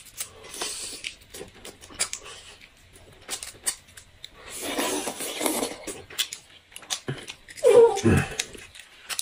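Close mouth sounds of eating braised pork bones: lip-smacking, chewing and sucking meat off the bone, with many small wet clicks and a longer slurping stretch in the middle. Near the end a short vocal sound falls in pitch.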